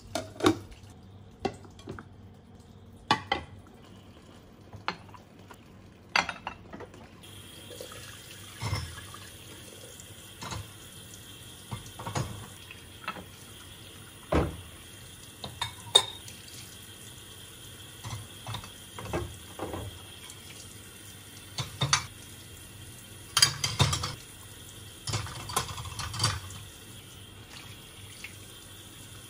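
Ceramic plates and bowls clinking and knocking against each other as they are scrubbed and moved at a kitchen sink. About seven seconds in the tap comes on and runs steadily, with dishes rinsed under the stream and more clinks on top.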